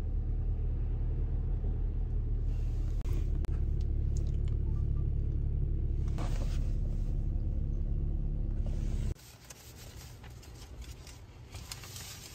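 Steady low rumble of a car heard from inside the cabin. It cuts off abruptly about nine seconds in, leaving a much quieter stretch with faint scattered ticks.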